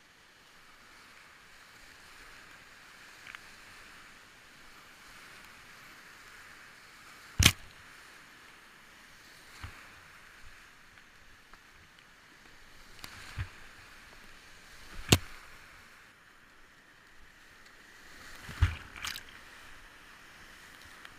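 Whitewater rapids rushing steadily, heard from a kayak through an action camera's housing, with a few sharp knocks from paddle strokes and splashes, the loudest about seven and a half seconds in and again twice later.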